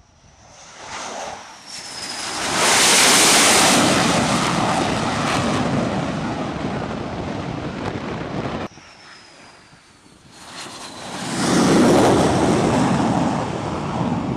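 F/A-18 Super Hornet jet engines passing low, twice: each pass swells to a loud roar with a high whine falling in pitch, and the first cuts off abruptly about nine seconds in. Wind buffets the microphone.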